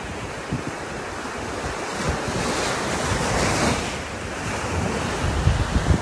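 Small surf breaking and washing over the sand in shallow sea water, swelling about halfway through, with wind buffeting the microphone in gusts.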